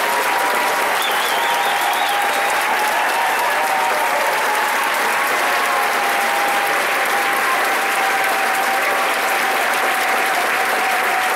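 Theatre audience applauding steadily, a dense even clapping that holds at the same level throughout.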